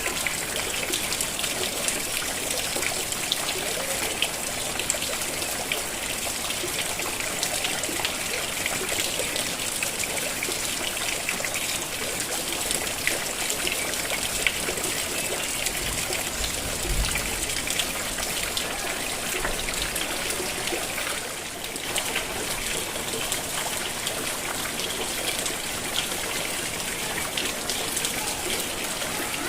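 Steady rain falling, with water trickling and running and countless small drop hits. A brief low rumble comes a little past the middle.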